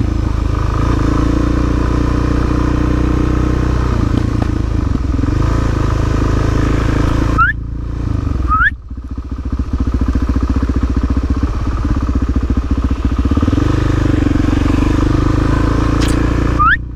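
Motorcycle engine running steadily. It drops off briefly about seven and a half seconds in and again near the end, where a few short rising squeaks are heard, then settles into a slower, pulsing beat for several seconds.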